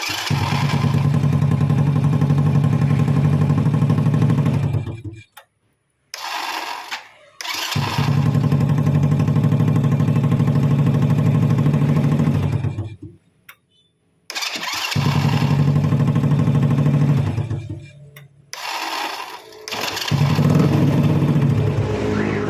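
Honda Supra Fit's small single-cylinder four-stroke engine started several times in a row on its electric starter, catching and running for a few seconds each time before it is switched off. It is a test of the starter motor after a thin shim was fitted to take up its worn bushing, which had let the armature rub on the magnet.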